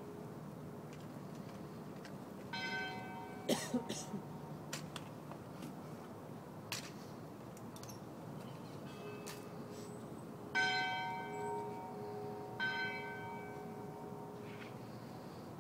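A bell tolling for a funeral: three strikes, each ringing on and fading slowly, the second and third about two seconds apart. A few sharp knocks and clanks come shortly after the first strike.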